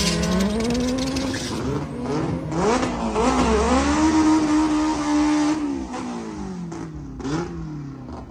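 Fifth-generation Honda Prelude making a drag-strip pass. The engine climbs in pitch through the gears with short dips at the shifts, holds a high steady note, then drops and fades as the car pulls away down the track.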